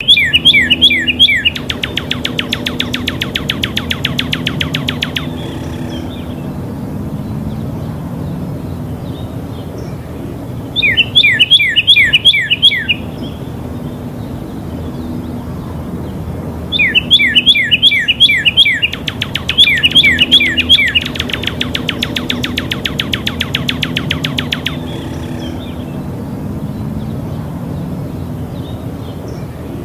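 Songbird calling: phrases of quick, sharply falling whistled notes, each followed by a long, very fast trill. The pattern repeats several times over a steady low background noise.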